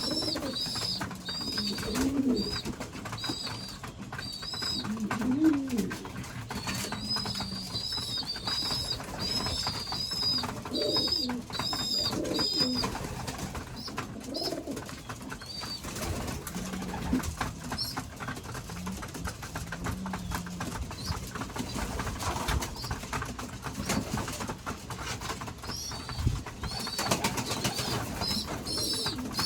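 Domestic pigeons in a loft: low, repeated cooing, with runs of quick, high-pitched peeps from young pigeons that come in bursts.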